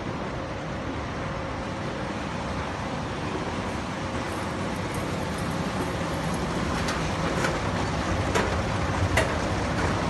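Steady mechanical rumble and hum of a moving escalator and the surrounding machinery, with several sharp, irregular clicks in the second half.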